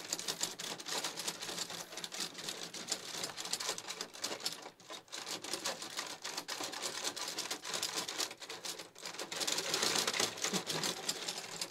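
Rock 'Em Sock 'Em Robots toy being played: a fast, irregular clatter of plastic clicks as the handle controls are jabbed and the robots' arms punch.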